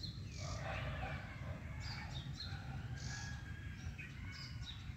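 Small birds chirping in short, high calls over a steady low background rumble, with faint barking from another dog out of sight.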